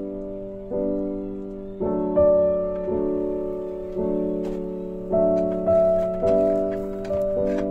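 Background piano music: notes and chords struck every second or so, each ringing and fading.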